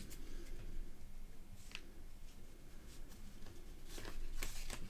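Trading cards handled by hand after a pack has been torn open: faint rustling with light clicks and taps as the cards are slid out and sorted, a few clicks clustered near the end.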